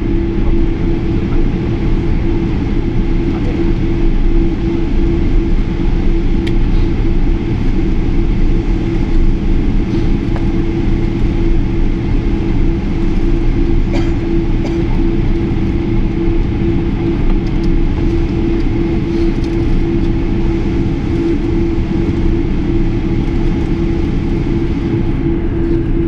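Cabin noise inside a Boeing airliner while it taxis: the jet engines and cabin air run steadily, with one constant humming tone through the noise and a few faint clicks now and then.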